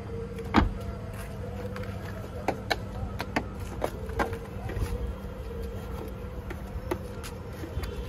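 Car being hand-washed: soapy window glass and wing mirror rubbed by hand, with scattered clicks and taps and one louder knock about half a second in, over a steady low hum.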